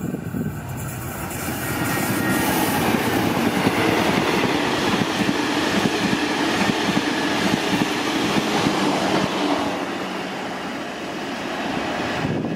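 Diesel-electric locomotive No. 5204 drawing close and passing, the sound building over the first two seconds, followed by a rake of ex-JR 14 series passenger coaches rolling past with steady wheel-on-rail noise.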